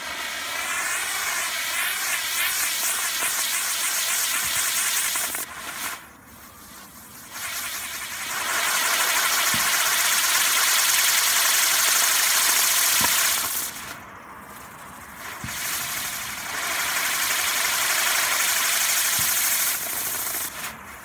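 Whizz wheel firework spinning, its fountains hissing loudly and steadily, with a brief warbling whistle at the start. The hiss drops away twice for a second or two, then picks up again.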